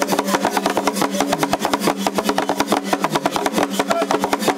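Traditional drumming on wooden drums: a fast, steady run of many strokes a second, with pitched drum tones.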